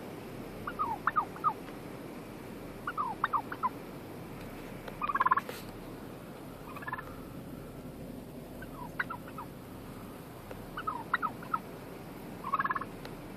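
Wild turkey toms gobbling again and again, a quick rattling burst about every two seconds, seven in all, the loudest about five seconds in.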